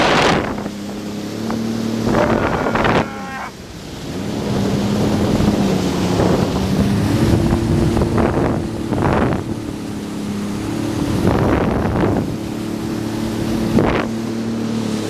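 Jet ski engine running under way, its pitch rising and falling as the throttle changes and easing off briefly a few seconds in. Several loud rushes of spray and wind noise hit the microphone.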